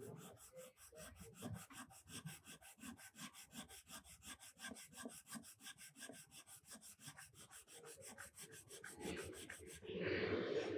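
Faint rubbing on small metal carburetor parts by hand, with a fast, even ticking running under it. The rubbing gets louder near the end.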